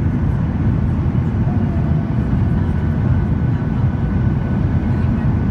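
Steady deep rumble of an airliner's cabin during descent: engine and airflow noise.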